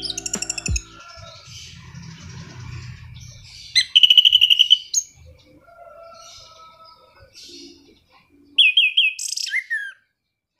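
Anis cendana thrush singing in varied whistled and trilled phrases: a loud trilled burst about four seconds in and another near the end, with softer chirps between.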